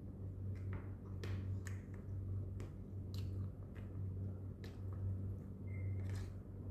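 Metal spoon clicking and scraping against a plastic food container and chewing, over a steady low hum. The clicks are irregular, about seven of them.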